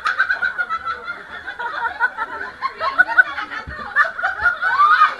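A group of people laughing, several voices at once, with bits of chatter mixed in.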